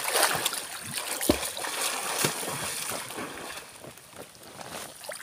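Water splashing and sloshing as a man lunges into river water and dives under, busiest in the first three seconds and dying away after that.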